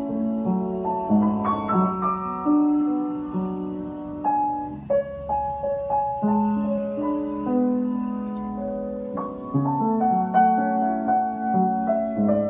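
Piano played by hand: a gentle piece of held chords in the bass with a melody line moving above them, notes ringing on into each other.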